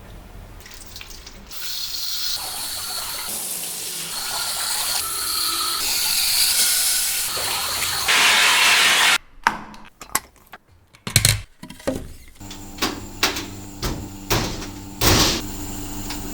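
Water running and splashing, building in level, then cutting off abruptly about nine seconds in. A string of sharp clicks and knocks follows over a low steady hum.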